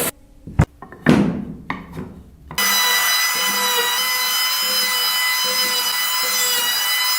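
A few sharp knocks on wood, then a woodworking power tool running steadily with a high whine.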